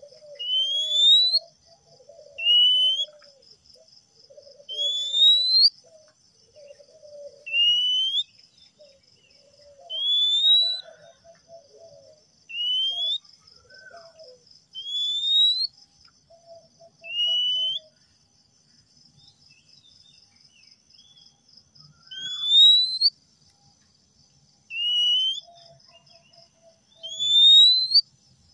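Male Oriental magpie-robin whistling: a short, clear, rising whistle repeated about every two to three seconds, pausing for a few seconds past the middle. A steady high buzz and soft low chattering run underneath.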